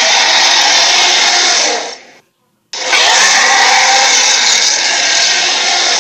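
Harsh, raspy monster roar sound effect for the Lochnessgator creature. The first long blast cuts off about two seconds in, and after a short silence a second one of about four seconds begins.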